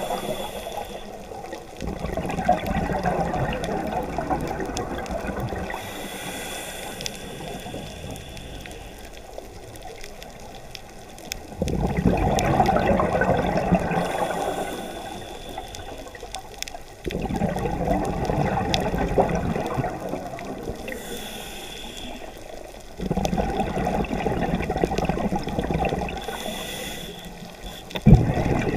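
Scuba diver breathing through a regulator underwater: a rush of exhaled bubbles every five or six seconds, with a fainter hiss of inhaling between them. Two sharp knocks near the end.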